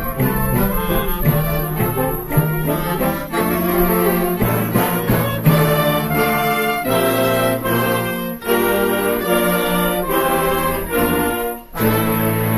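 Wind band of clarinets, saxophones and brass playing a concert piece in sustained chords. The music drops out for a moment shortly before the end and comes back on a held low chord.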